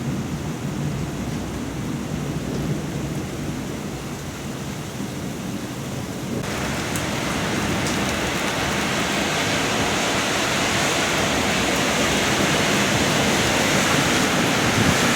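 Heavy rain pouring down in a thunderstorm, a steady hiss with a low rumble beneath. About six seconds in, the hiss abruptly turns louder and brighter.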